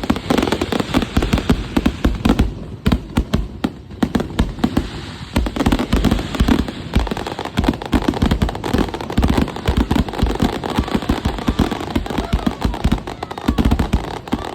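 Fireworks going off in a dense barrage: a rapid, unbroken stream of bangs and crackles, many a second.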